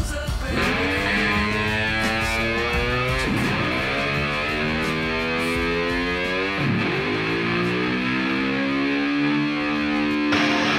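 Background rock music: an electric guitar holding long notes that bend and slide in pitch, with no singing. A fuller, louder section comes in near the end.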